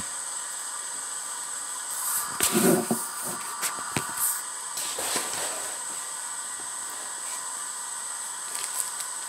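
A steady hiss throughout, with a few soft knocks and rustles of items being handled nearby, the clearest about two to three seconds in and again about five seconds in.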